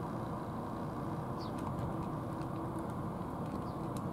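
Steady low background rumble, with faint clicks from cats eating out of plastic food trays and a short high bird chirp about a second and a half in.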